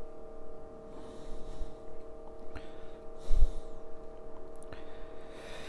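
A pause in a man's talk at a close microphone: a steady faint electrical hum, with a few soft breaths and a brief low bump about three and a half seconds in.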